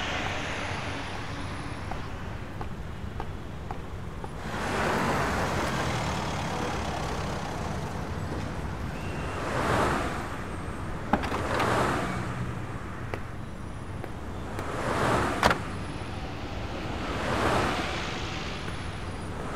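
Street traffic: cars passing one after another, each a swelling, fading rush of tyre and engine noise, over a steady low hum. Two sharp clicks come partway through, the second the loudest sound.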